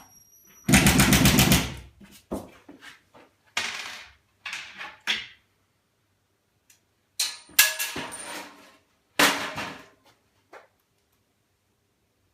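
A power drill/driver with a Phillips bit drives screw-in drywall anchors into the wall. There is one long, rapid rattling burst about a second in, then several shorter bursts.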